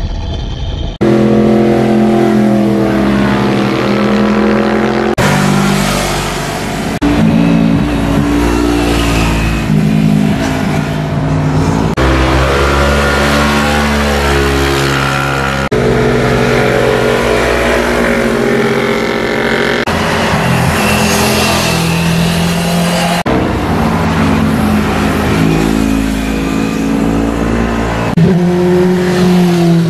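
Motor scooter engines running hard as the scooters sweep through a bend, each at a fairly steady high pitch with some rising and falling revs. It comes as a string of separate pass-bys, each breaking off suddenly into the next, about seven in all.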